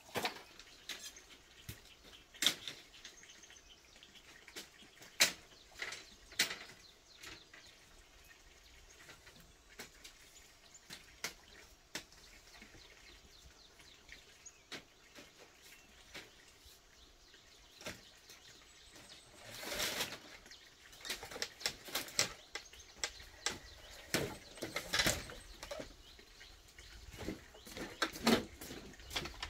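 Irregular sharp knocks and clicks, a few seconds apart, with short rustling bursts about two-thirds of the way through and again near the end.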